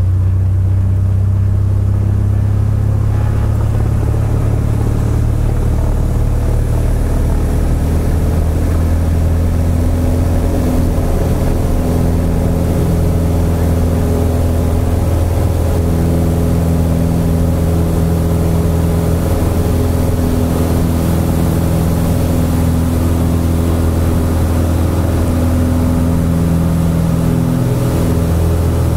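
Cessna 172's piston engine and propeller running steadily, heard from inside the cockpit as the aircraft moves along the runway. The engine note fills out and a hiss rises over the first several seconds.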